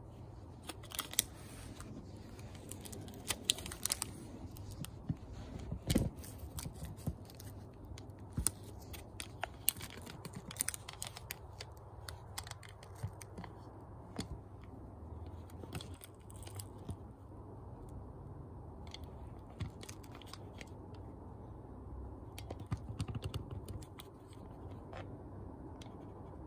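Handling noise from a camera being moved and repositioned: scattered, irregular clicks and knocks with some rustling. The heaviest knock comes about six seconds in.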